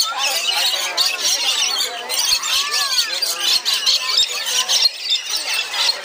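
A flock of lorikeets keeps up a dense, shrill screeching and chattering, with the murmur of a crowd's voices mixed in.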